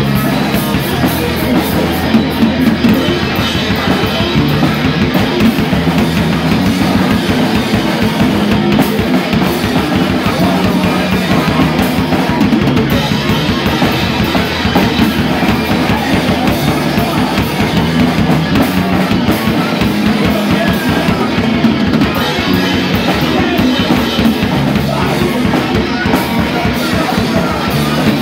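Rock band playing live, with a drum kit driving a steady beat under bass and guitar, in an instrumental stretch without vocals.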